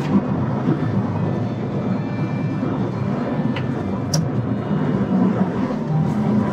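Heavy truck driving along a road: steady low engine and road noise, with two brief clicks about four seconds in.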